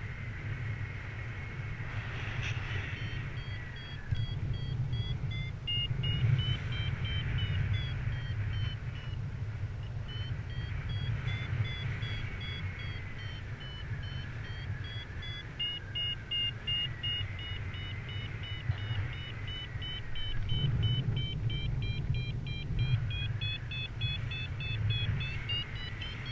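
Wind rushing over the camera microphone in flight, with a paragliding variometer beeping on top: quick short beeps that wander up and down in pitch, heard in bursts from about six seconds in and again through most of the second half, the sign of the glider climbing in lift.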